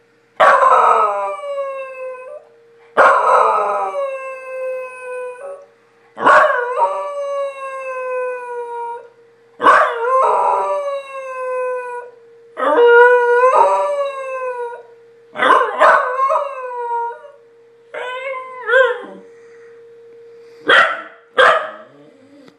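A corgi howling over and over, each howl starting loud and sliding down in pitch, the later howls shorter and wavering, with two short yelps near the end. Beneath the howls runs a faint steady tone from the tornado siren test that sets the dog off.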